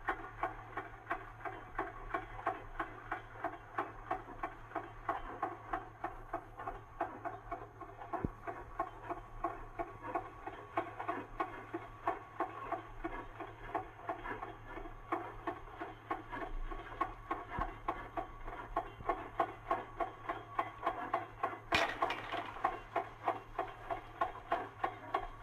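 Steam-hauled freight train working slowly: a steady rhythm of sharp beats, a few a second, with a low steady hum beneath. About three-quarters of the way through, a louder hiss comes in on top of the beats.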